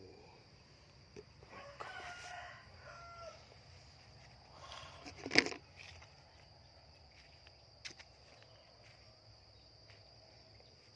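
A rooster crows once, faintly, about two seconds in. Just past the middle there is a single sharp crunch, the loudest sound.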